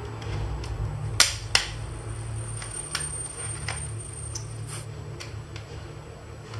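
Plastic snap clips of a Samsung Galaxy Tab 3 7.0 tablet's back cover clicking loose as a plastic pry tool is worked around the edge. There are two sharp clicks a third of a second apart just over a second in, then a handful of lighter clicks.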